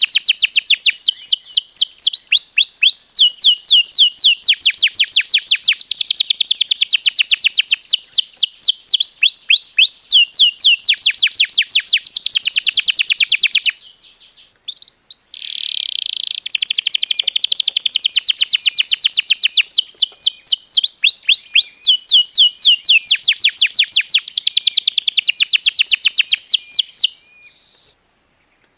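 Canary singing long phrases of rapid, high trills and repeated chirps. The song breaks off for a moment about halfway through and stops shortly before the end.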